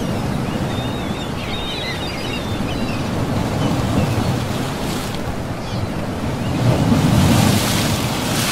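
Waves washing in with wind, one wave surging louder about seven seconds in. A few faint high chirps about one to three seconds in.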